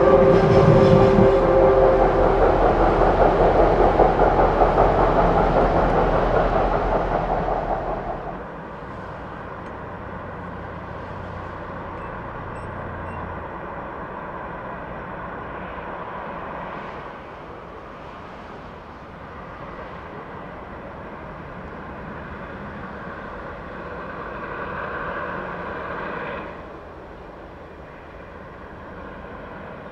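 Steam locomotive passing: the last note of its whistle ends about a second in over a loud rumble, which drops away sharply about eight seconds in to a fainter, steady distant running sound.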